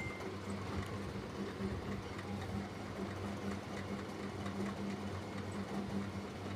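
A steady low hum with a soft hiss under it, and the last of a ringing ding fading out right at the start.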